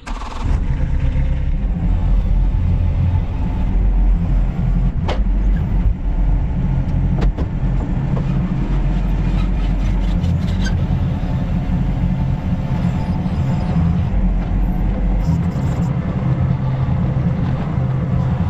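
Yanmar Vio25 mini excavator's diesel engine running steadily at working speed, loud and close. A few sharp cracks and clicks come through the engine noise as it works.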